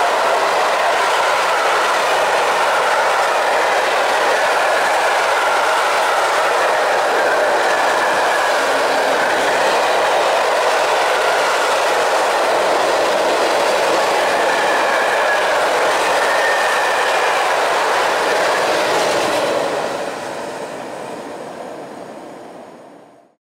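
Open coal gondola wagons of a freight train rolling past close by: a steady clatter of wheels over the rail joints with now and then a faint wheel squeal. The sound dies away in the last few seconds as the end of the train goes by.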